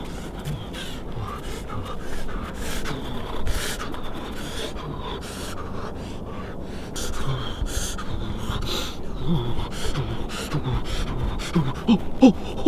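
A man panting and gasping in quick, irregular breaths, with short low voiced grunts that come more often and louder near the end: the breathing of someone nearly naked and shivering in the snow.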